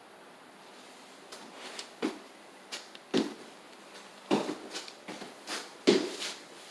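Footsteps and light knocks in a small closet: about ten irregular short thuds, starting about a second in.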